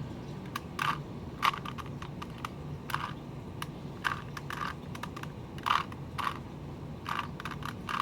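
Plastic Rubik's Cube layers turned by hand: a run of irregular clicks and clacks, with a louder turn every second or so, as the last-layer pieces are cycled counterclockwise to finish the solve.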